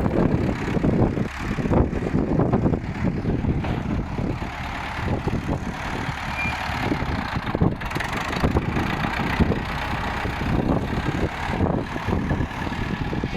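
1970 Ford 5000 tractor's four-cylinder engine running.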